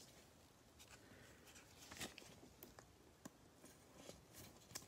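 Faint rustling and a few soft clicks of trading cards being handled by gloved hands, a card slid into a clear plastic sleeve, with the sharpest clicks about two seconds in and near the end.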